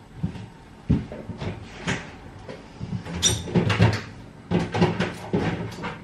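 Fridge-freezer door and food containers being handled as groceries are packed in: irregular clunks and knocks, with a brief clinking rattle about three seconds in.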